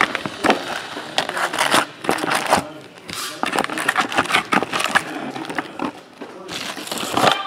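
Foil trading-card packs crinkling and rustling in irregular bursts as they are handled and pulled out of an opened cardboard box.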